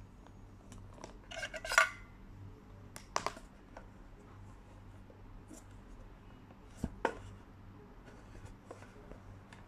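A stainless steel lunchbox and a plastic spoon being handled: a quick rattle of light clicks about two seconds in, a couple of knocks a second later, and two sharp clicks about seven seconds in.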